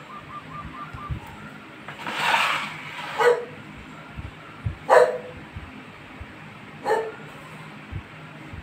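A dog barking four times: one longer bark about two seconds in, then three short barks spaced roughly two seconds apart.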